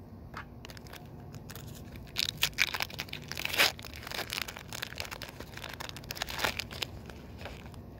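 Foil Pokémon booster pack wrapper crinkling and being torn open, a run of irregular crackles with the loudest rip about three and a half seconds in.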